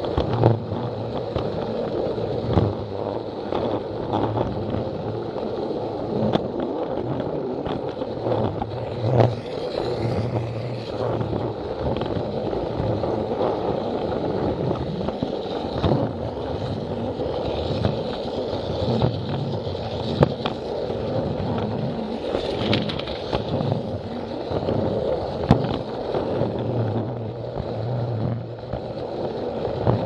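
A Plarail battery toy train running on plastic track: its small electric motor and gears whirring steadily as the wheels rattle along the plastic rails, with occasional sharp clicks.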